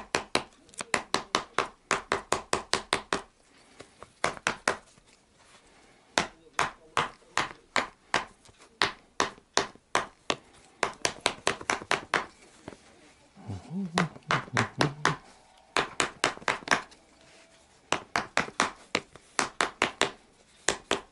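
Small hammer tapping along the fold of a piece of leather, pressing the seam flat. The taps come in quick runs of about four a second, with short pauses between runs.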